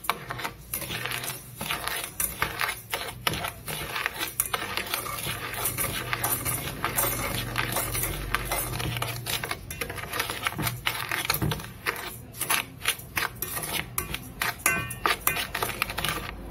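Metal spoon scraping and clinking against the inside of an aluminium pot, stirring brown sugar as it melts. Quick irregular scrapes and taps go on throughout.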